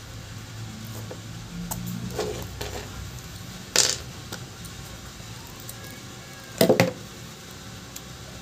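Sharp clicks and taps of a metal pry tool and phone parts being handled during a smartphone repair: a few light clicks, then one sharp click about four seconds in and a quick cluster of taps near seven seconds, over a low steady hum.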